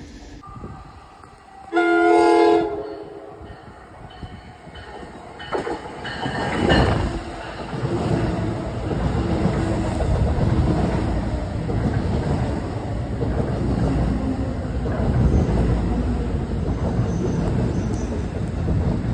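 An NJ Transit train sounds one short horn blast about two seconds in. Its multilevel coaches then run past at close range, with steady, loud wheel and car noise.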